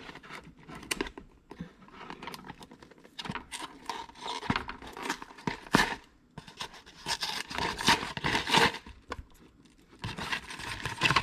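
Cardboard medicine carton being torn open and its packaging handled: irregular tearing and crinkling rasps with small clicks, in bursts separated by short pauses.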